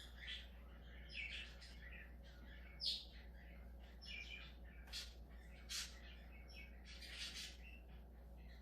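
Budgerigar chattering: a run of short, high chirps and warbles, with a sharper, louder chirp about three seconds in.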